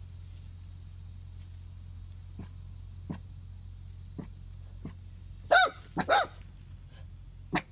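A puppy barks twice in quick succession about five and a half seconds in, two short high-pitched barks at an acorn squash it is wary of.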